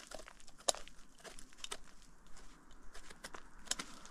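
A knife scraping and trimming the dirty stem base of a freshly picked king bolete: irregular crisp scratches and small crunches, with two sharper ones, one under a second in and one near the end.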